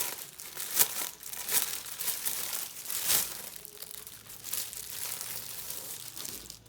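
Packaging crinkling and rustling as a gaming mouse pad is pulled out, with sharp crackles in the first few seconds and a softer rustle after.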